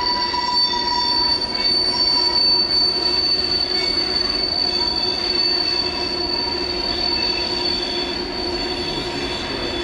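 Freight cars' steel wheels squealing against the rail on a curve as the train rolls across a curving trestle: a steady, high-pitched flange squeal of several held tones over the rumble of the cars, easing slightly toward the end.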